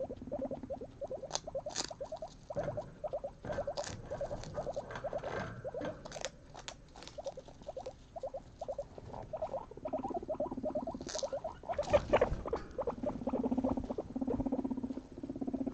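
Guinea pigs chewing, a fast, even run of small crunching ticks, several a second, with rustling and a few sharper clicks as they shift in paper bedding and hay.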